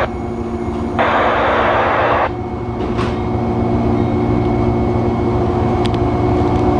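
Amtrak passenger train with Amfleet coaches standing at a platform: a steady hum of several tones over a low rumble, with a burst of air hissing that starts suddenly about a second in and cuts off just over a second later.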